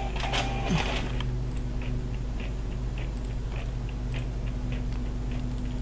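Steady low electrical hum and microphone hiss, with scattered faint clicks from a computer mouse as pen-tool anchor points are placed.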